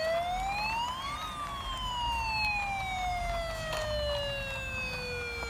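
Toy bubble fire truck's electronic siren wailing: one tone rises for about a second, then falls slowly and evenly for the rest.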